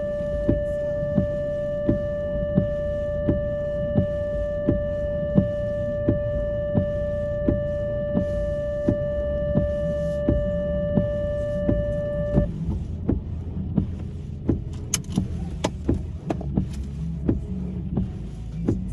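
Car interior in the rain: a steady electronic warning tone sounds together with regular ticking about one and a half times a second, both stopping abruptly about two-thirds of the way through. After that, a low rumble and irregular tapping go on.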